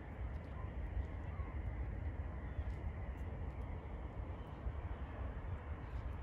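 Outdoor ambience: a steady low rumble with distant city noise, and no distinct events.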